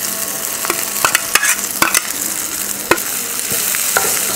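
Small onions, garlic and tomato halves sizzling in oil in a nonstick frying pan as grated coconut is stirred in with a wooden spatula, the spatula knocking and scraping against the pan several times.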